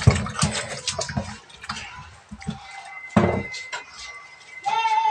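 Water splashing in a metal kitchen sink as hands wash something in the basin, with irregular knocks and clatter against the sink, the loudest about three seconds in. A brief pitched sound comes near the end.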